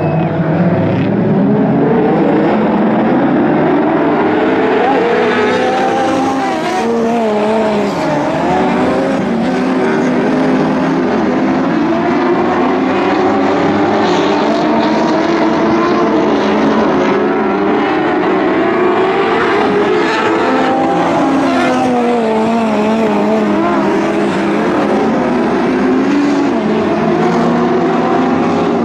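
A pack of Lightning Sprint cars, small winged sprint cars, racing on a dirt oval. Several engines run at high revs together, their pitch rising and falling again and again as the cars power down the straights and ease off for the turns.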